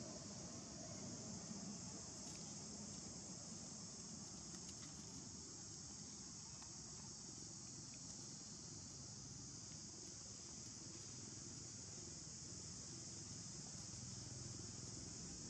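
Insect chorus: a faint, steady, high-pitched buzz that holds without a break.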